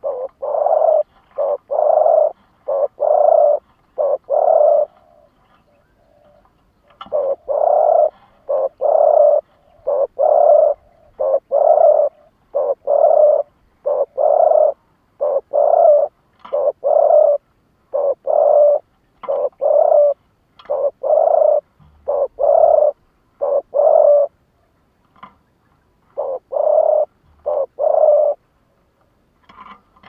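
Caged decoy spotted dove cooing: quick runs of short, low coos repeated one after another. There is a pause of about two seconds after the first run, and another near the end.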